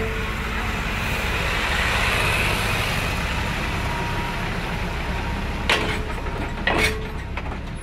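Train wheels rolling over a broken rail at close range: a steady rumble of wheels on steel, with two sharp clanks about a second apart near the end.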